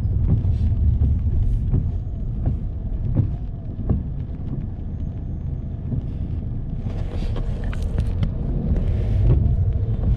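Car cabin road noise while driving on a wet road in rain: a steady low rumble with scattered ticks of raindrops on the windscreen. A brighter hiss of tyre spray swells about seven seconds in and eases off a couple of seconds later.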